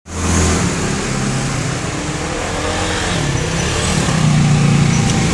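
Motor vehicle engine running close by over a steady rush of street noise, its low tone shifting in pitch and growing a little louder toward the end.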